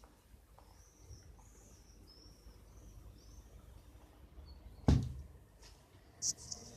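Faint, high, repeated chirps in the first half, then a single sharp thump about five seconds in.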